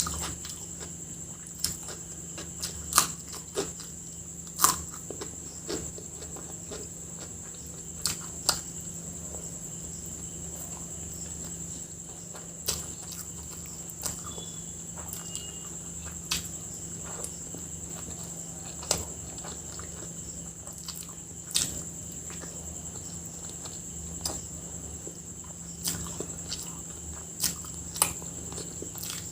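Close-up eating sounds of a person chewing chicken biryani and egg masala: irregular mouth clicks and smacks a few seconds apart. A steady high-pitched whine and a low hum run underneath.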